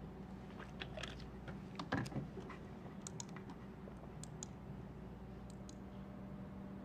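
Computer keyboard keys being typed in short, scattered runs of clicks, with one louder knock about two seconds in, over a faint steady hum.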